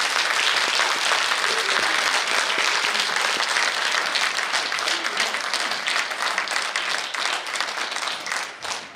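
Audience applauding, a dense, even clapping that thins out toward the end.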